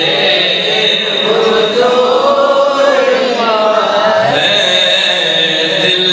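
A man's voice chanting durood (salutations on the Prophet) in long, drawn-out melodic phrases through a microphone and loudspeakers. A steady high tone runs underneath.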